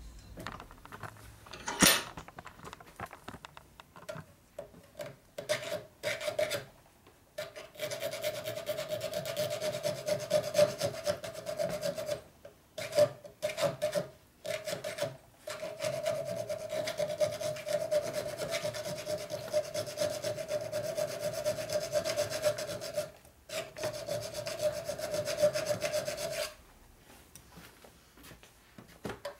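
Hand file rasping in quick, even strokes on a metal part held in a bench vise, opening up a misshapen screw hole so the screw will fit. A sharp knock comes about two seconds in, then short bursts of filing, then steady filing with a few brief pauses, stopping a few seconds before the end.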